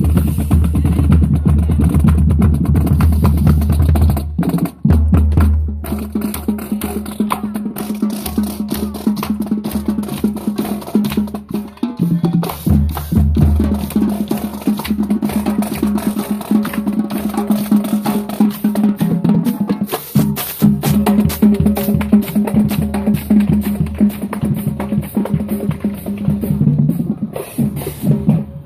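High school marching band playing as it marches, with snare drums striking a dense, steady rhythm over held low brass notes. The music stops just at the end.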